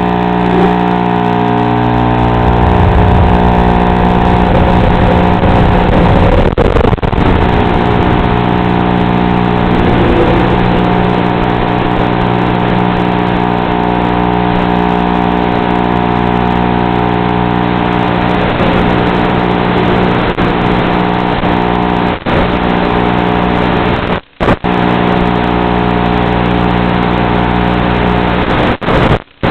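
An FPV aircraft's electric motor and propeller humming steadily in flight, heard through the aircraft's own onboard audio. The sound cuts out briefly twice near the end.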